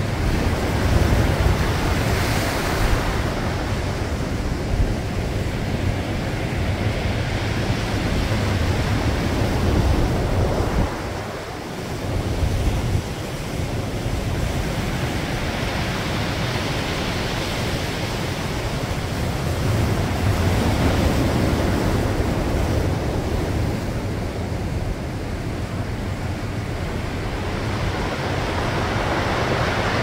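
Heavy typhoon-driven surf breaking and washing over a rocky shore, a continuous loud rush of water that eases briefly about eleven seconds in. Wind buffets the microphone with a low rumble.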